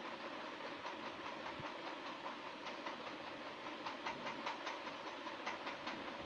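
Thin copper wire ticking and rustling in the hands as it is wound turn by turn into a coil, over a steady hiss.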